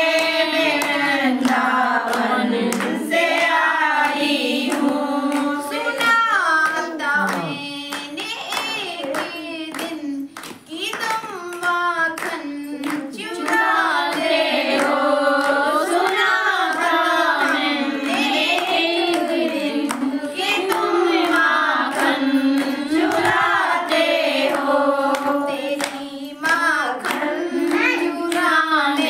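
Women singing a Hindi Radha Krishna bhajan, a lead voice carrying the melody, with hands clapping along to the beat.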